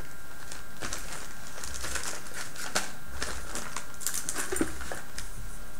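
Clear plastic parts bag crinkling and rustling as it is handled, in a series of short crackles.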